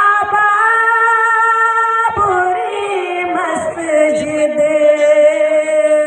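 A young woman's solo singing voice drawing out the long held notes of a nazm. A high note steps up and is held, then about two seconds in the voice slides down and settles on a lower note that is sustained for several seconds.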